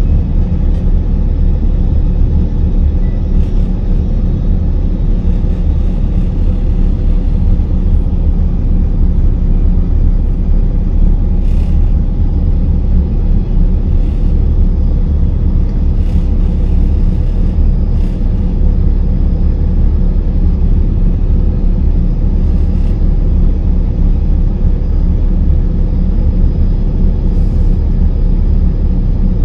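Cummins ISM diesel engine of a 2000 Gillig Phantom transit bus idling steadily at a low, even rumble, heard from inside the bus cabin.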